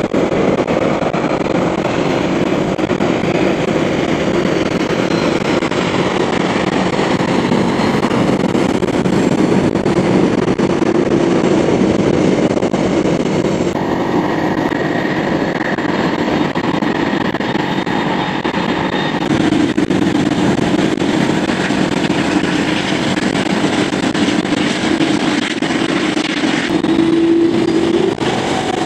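Airbus A330-300 jet engines running as the airliner lands and taxis, sped up fourfold: a continuous dense roar. The sound changes abruptly twice, about halfway through and again about two-thirds through, with a faint high whine between the two changes.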